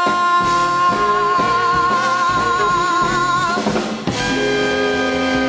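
Live band playing the end of a rhythm-and-blues song: the singer holds the last note with a widening vibrato over drums and guitar. About four seconds in the band breaks off and comes back in on a closing held chord.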